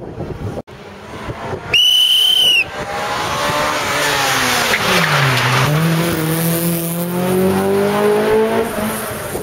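A loud, high, steady squeal lasting about a second, then a Honda Civic rally car's engine whose revs drop and then climb steadily as the car accelerates away, over tyre noise on the tarmac.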